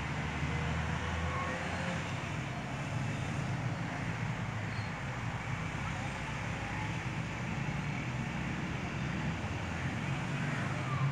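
Steady background road traffic noise, a continuous low hum and rush with no distinct events.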